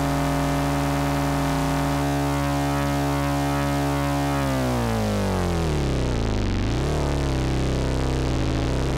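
Noise Engineering Virt Iter Legio digital oscillator in its Bass algorithm: a sustained synthesizer tone rich in overtones, held steady, then gliding down in pitch from about four and a half seconds in and swinging quickly back up around seven seconds as its knobs are turned.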